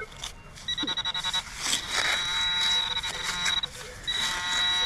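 Metal detector target alert buzzing over a buried iron nail: a fast pulsing buzz that settles into a steady tone. It drops out briefly about three and a half seconds in, then comes back, with a few scrapes of digging among it.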